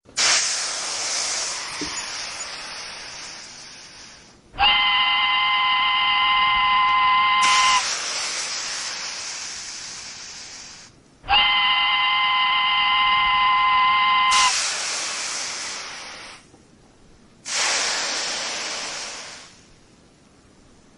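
Steam locomotive sounds: repeated bursts of steam hissing that start suddenly and fade away, and two whistle blasts of about three seconds each, several tones sounding together. These are a sound effect laid over the model, not a sound the cardboard train makes itself.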